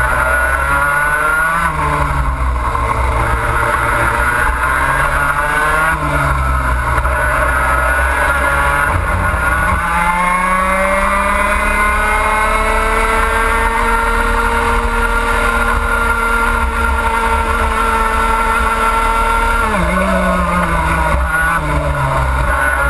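Racing kart's two-stroke engine heard from onboard, revs rising and falling through a series of corners. It then climbs and holds high at full throttle down a long straight, drops sharply about twenty seconds in as the throttle is lifted for braking, and picks up again near the end.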